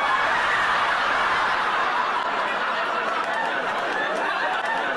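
Studio audience laughing loudly in one long, unbroken wave of many voices.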